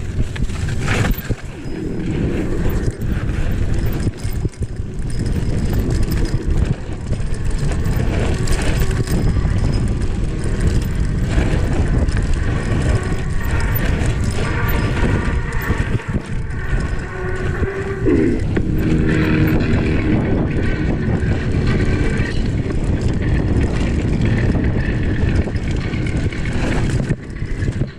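Mountain bike riding fast over a rough dirt trail: steady rumbling tyre and wind noise with frequent knocks and rattles from the bike over bumps.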